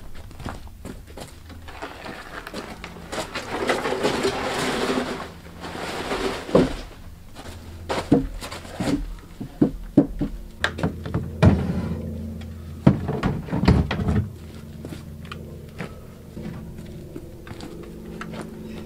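Logs being handled and set down: a rustling scrape for a few seconds, then a run of sharp wooden thuds and knocks, irregular, a second or so apart.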